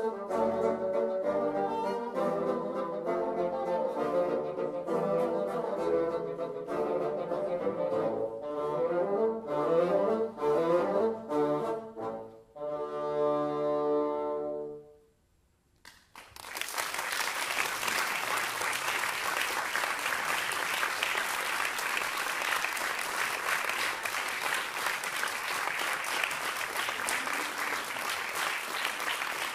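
A bassoon ensemble with contrabassoon plays a lively Baroque concerto movement and ends on a held final chord about 13 seconds in. After a second of silence, the audience breaks into steady applause.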